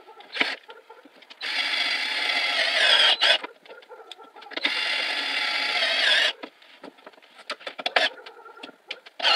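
Cordless drill-driver running twice, each run lasting a second and a half to two seconds, driving screws into the wooden frame of a workbench being assembled; short clicks and knocks of handling in between.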